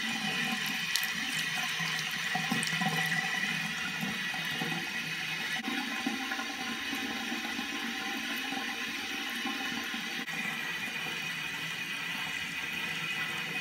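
Tap water running steadily into a bathroom washbasin, with a faint steady tone over the rush of water.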